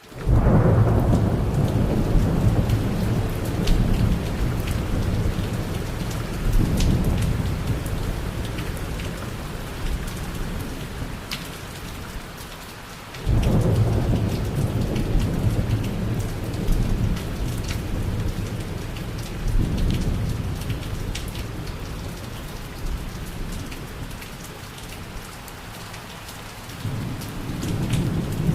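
Thunder rumbling over steady rain. A sharp new peal breaks in about halfway through and rolls on, and smaller rumbles swell again near the end.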